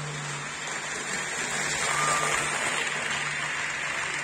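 HO-scale Mehano model train running past on the track, the rattle of its wheels on the rails swelling to its loudest about two seconds in and then easing, over a steady low hum.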